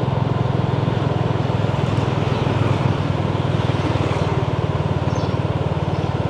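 Vehicle engine running steadily while under way: a low, rapidly pulsing drone with road and wind noise over it.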